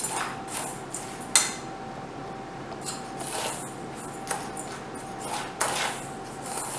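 A metal spoon stirring and scraping brown sugar and cinnamon around a stainless steel bowl, in irregular scrapes with a sharp clink about a second and a half in.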